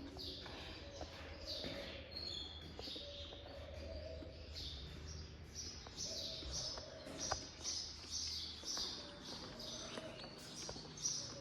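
A flock of caged budgerigars chattering: a continuous stream of short high chirps and warbles, several a second, over a faint low steady hum.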